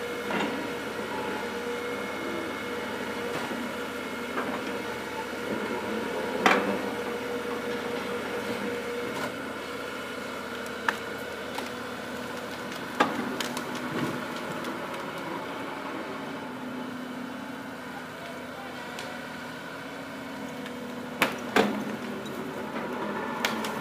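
Excavator-mounted Urus III cable yarder running steadily with a held whine while it hauls logs up the slope. There are several sharp knocks, two of them close together near the end.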